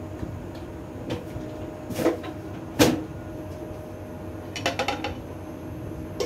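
Kitchen knocks and clatter of things being handled: single knocks about one and two seconds in, the loudest a little before three seconds, then a quick rattle of several clicks about five seconds in, over a steady background hum.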